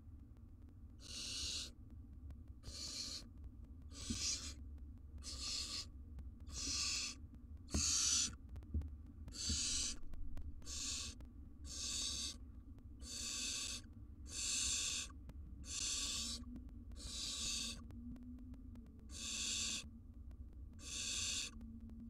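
Barn owl chicks giving their rasping, hissing food-begging calls, repeated over and over about once every second or so. A few soft low knocks come in the middle.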